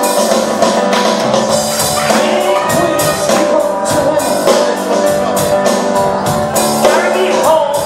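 Live band playing amplified music with electric guitar, bass guitar and a drum kit, the drums and cymbals keeping a steady beat.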